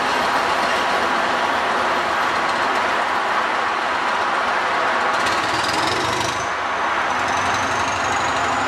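Northern Ireland Railways 450 Class 'Castle' diesel-electric multiple unit, a 'Thumper', pulling away under power, its diesel engine running hard with a steady, dense rumble. About five seconds in, a high whine starts and climbs slowly in pitch as the train draws away.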